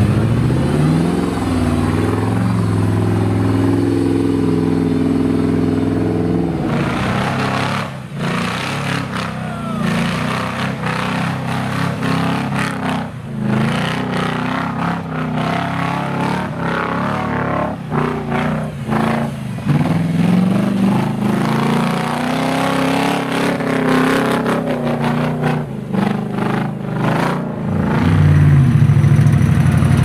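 Off-road trial 4x4 engines revving hard and labouring under load, the pitch rising and falling as the throttle is worked. Through the middle stretch there is rough clatter and many sharp knocks from the vehicles grinding over rock and through brush, and near the end an engine runs loud and high again.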